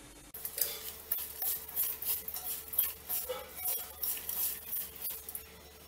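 Sliced onions being mixed by hand with salt and spices in a stainless steel bowl: an irregular wet rustling and crackling, with light clinks against the steel.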